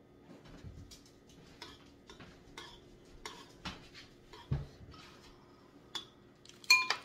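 Metal spoon stirring soup in a bowl: light clinks and scrapes against the bowl every half second or so, with one louder ringing clink near the end. A dull thump comes a little past the middle.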